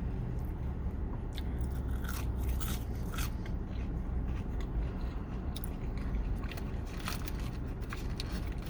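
Close-up chewing and biting of fast food, with many small crunchy clicks, over a steady low rumble in a car cabin.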